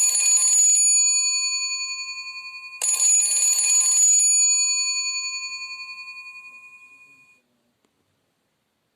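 Alcatel OT-808 mobile phone playing a bell-like ringtone or message tone: a ring struck twice, about three seconds apart, each one fading out slowly.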